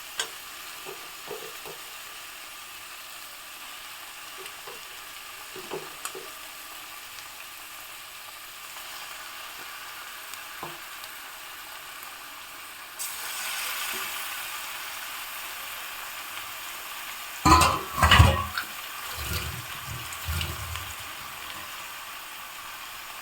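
Chicken pieces sizzling in hot mustard oil with onion and spice paste in a pan, a steady frying hiss that swells about halfway through. A cluster of loud knocks and clatter comes about three-quarters through, followed by a few softer thumps.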